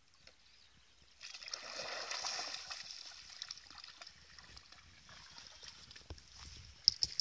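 Dog splashing through shallow pond water as it climbs out onto the bank: a burst of splashing about a second in that fades over a couple of seconds. A few sharp clicks near the end.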